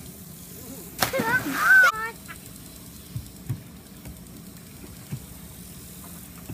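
A body splashing into a swimming pool about a second in, a belly flop off the diving board, with a child's shout over the splash. A few faint knocks follow.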